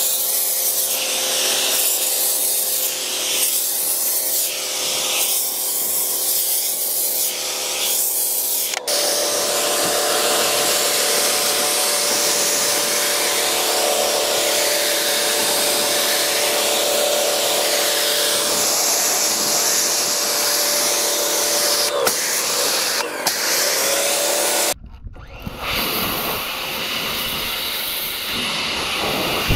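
Pressure washer feeding a wheeled undercarriage sprayer: a steady hiss of water jets blasting the underside of the car and the concrete, over a steady hum. For the first several seconds the hiss swells and fades about once a second, and the sound changes abruptly a couple of times.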